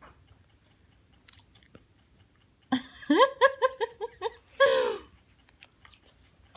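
Quiet chewing with faint mouth clicks, then about three seconds in a small child's fast run of short, high-pitched voice sounds, followed by one more brief high vocal sound about a second later.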